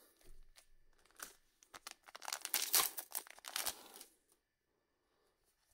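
A Wixoss trading-card booster pack's wrapper being torn open and crinkled by hand: a run of short rips and crinkles, loudest just before three seconds in, stopping about four seconds in.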